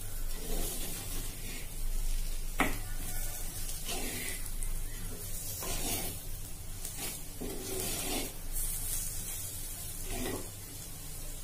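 Wooden spatula stirring and scraping chunks of boiled taro root coated in spice powder around a black cooking pot, with a light sizzle from the frying masala. The scraping strokes come every second and a half to two seconds.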